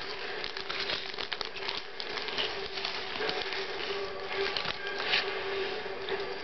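Crinkling and rustling of a Baked Lay's potato-chip bag as a hand rummages in it, a steady run of small crackles.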